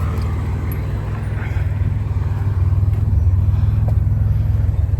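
Engine of a 1980s turbocharged Nissan Z car running as it pulls away, a steady low drone that grows slightly louder from about two seconds in.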